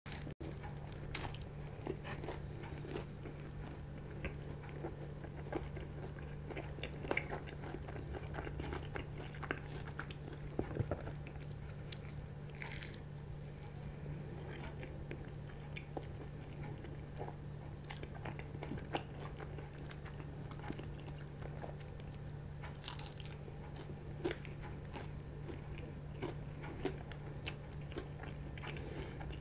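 A person biting and chewing a slice of Domino's Classified Chicken pizza with chili cheese burst crust, close to the microphone: small crunches and chewing clicks come irregularly all the way through.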